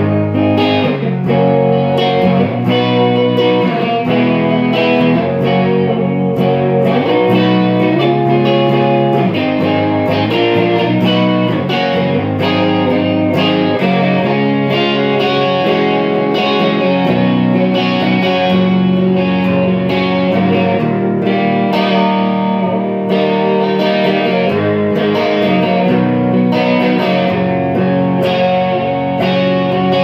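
Electric guitar played through an Orange amp head into a Marshall speaker cabinet, a continuous run of chords and picked notes.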